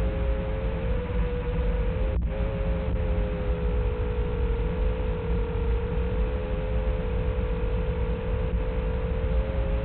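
Small FPV quadcopter in flight: its motors and propellers hum in two close notes whose pitch wavers slowly and steadily, over even hiss and low rumble, with a brief dropout about two seconds in.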